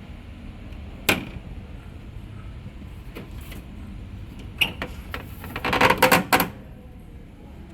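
Panasonic CS-C9DKJ split air conditioner running with a steady low rumble, broken by a sharp click about a second in and a quick cluster of clicks and clatter between about four and a half and six and a half seconds.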